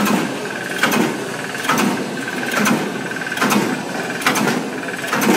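Stainless-steel dog-chew cutting machine running, with a sharp clack a little faster than once a second over a steady motor hum and whine: the regular cutting stroke as chew pieces are chopped and dropped onto the conveyor.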